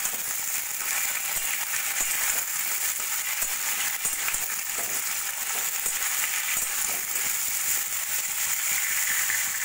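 Diced pumpkin, potato and pointed gourd sizzling steadily as they fry in hot oil in a kadai, with a few light scrapes and taps of a spatula stirring them.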